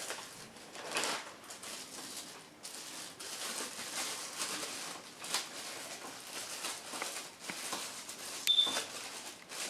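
Plastic wrapping and a plastic bag rustling and crinkling as a camera is unwrapped by hand, with scattered light handling clicks. A short high beep sounds once near the end.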